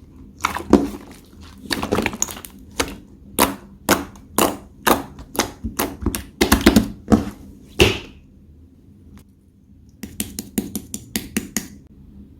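Slime being squeezed and poked by hand, giving sharp clicking pops about twice a second. After a pause of about two seconds, a quick run of clicks comes near the end.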